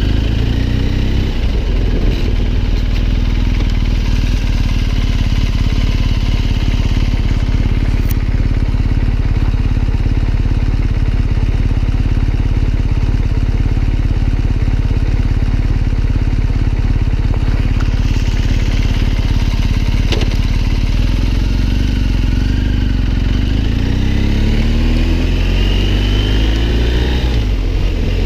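BMW R 1250 GS Adventure's 1254 cc boxer twin running while riding at low speed, with a steady low rumble underneath. The engine note climbs as the bike accelerates, briefly at the start and again near the end.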